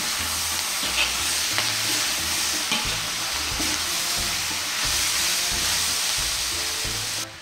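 Chopped chicken, bell pepper and onion sizzling in a hot wok as they are stir-fried, with a metal spatula scraping and clicking against the pan now and then. The sizzle drops away abruptly near the end.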